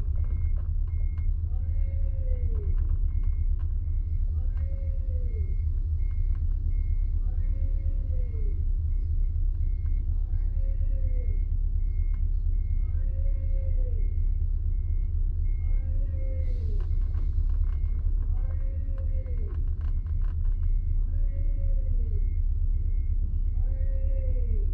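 Tow truck reversing: its diesel engine runs with a steady low rumble, a reversing alarm beeps rapidly and steadily, and a lower warning tone rises and falls about every one and a half seconds. A short hiss of air, typical of air brakes, comes about two-thirds of the way through.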